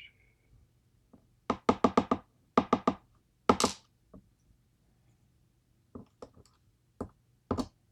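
Sharp knocks and taps on a hard surface while key pins are worked out of a pin-tumbler lock plug. They come in quick runs of three or four, then a heavier knock, then single taps spaced about half a second to a second apart.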